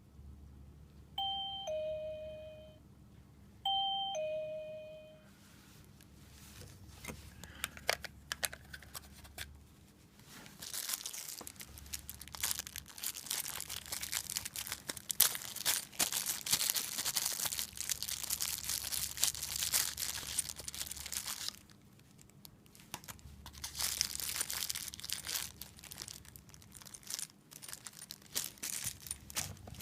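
Wireless door chime receiver sounding a two-note ding-dong twice, the sign that its magnet door/window sensor has been triggered. After that comes a long stretch of irregular crackling, rustling noise that is louder at its peaks than the chimes.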